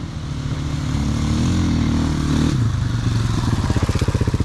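Motorcycle engine running, its pitch rising and falling. About two and a half seconds in it settles into a low, evenly pulsing beat close by.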